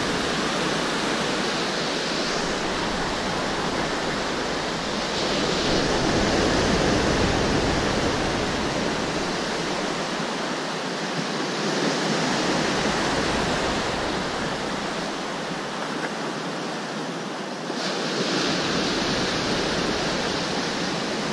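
Rough sea surf breaking and washing around a rock jetty, a steady rushing that swells and eases every few seconds.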